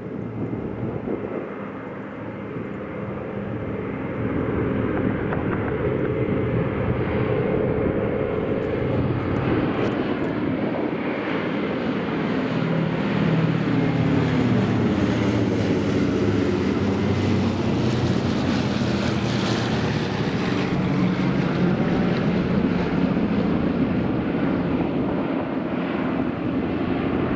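Wright Cyclone radial piston engines of a B-17 Flying Fortress droning as it flies low overhead. The sound grows louder about four seconds in and is loudest in the middle. Near the end the radial engines of a trailing formation of C-47 Dakotas carry on.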